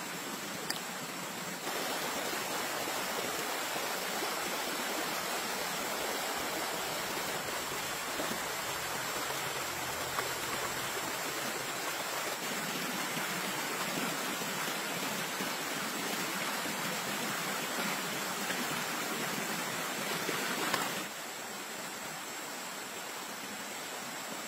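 Shallow stream running over rocks: a steady rush of water, louder from about two seconds in until about twenty-one seconds in.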